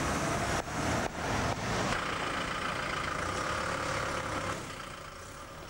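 Street traffic noise with vehicle engines running, easing off about four and a half seconds in.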